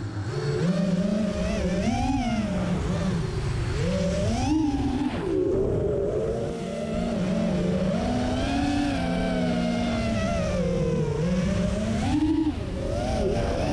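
FPV racing quadcopter's brushless motors and propellers whining, heard from its onboard camera, the pitch rising and falling again and again with the throttle.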